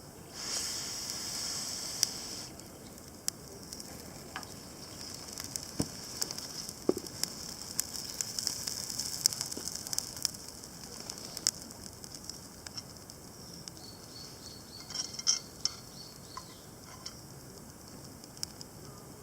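Wood campfire crackling and popping, with sharp irregular snaps over a steady high hiss. The hiss swells louder for about two seconds near the start.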